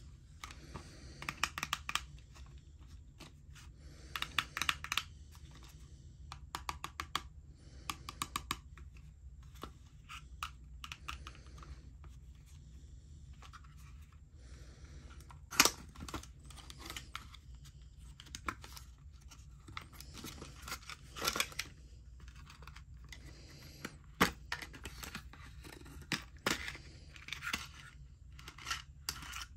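Small cardboard box handled and opened by hand: irregular rustling, crinkling and tearing of the card packaging, with a few sharp clicks and taps, the loudest about halfway through.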